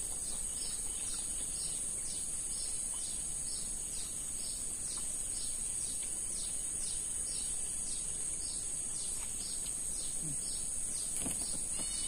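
Outdoor swamp ambience: a steady high insect drone, with a bird calling in short repeated notes about twice a second and a few quicker chirps near the end.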